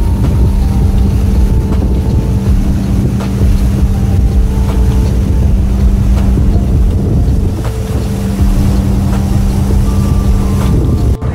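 Car ferry's engines droning steadily underway, a deep rumble with a constant low hum, with wind buffeting the microphone.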